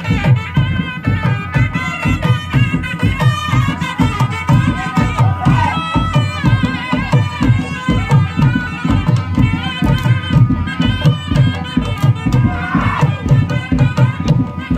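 A live folk band playing: a clarinet carries a wavering melody over a fast, steady drum beat.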